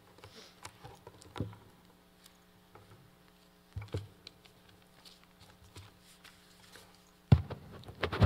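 Scattered clicks and knocks over a steady low hum, the loudest knock about seven seconds in.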